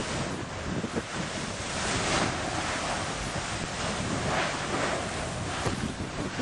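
Wind buffeting the microphone at the crater rim: a steady rushing noise with small low thumps, swelling about two seconds in and again past four seconds.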